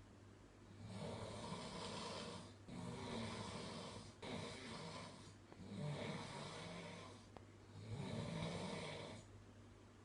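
A person snoring: slow, regular breaths in and out, each lasting one to two seconds, about three full breath cycles. A steady low hum runs underneath.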